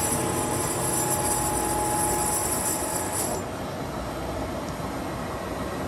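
A Toshiba TX-16 vertical boring mill driving an axis under power from its pendant control: a steady electric motor and gear whine that stops about three seconds in.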